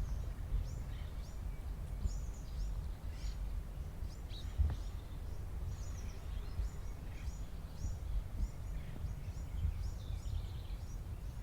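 Birds chirping: many short, high calls that each sweep downward, overlapping throughout, over a steady low rumble.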